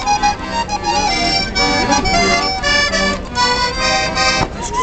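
Piano accordion playing a tune of steady reedy chords and melody notes, with a small dog singing along over it in wavering, bending pitches.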